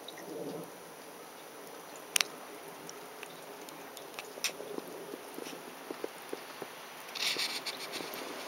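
Quiet snowy outdoor ambience: a steady faint hiss with scattered small clicks and taps, one sharp click about two seconds in, and a short rustle near the end.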